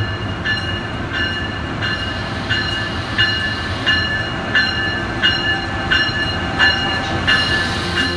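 A locomotive's bell ringing steadily, about one and a half strokes a second, over the low steady rumble of trains standing at a platform.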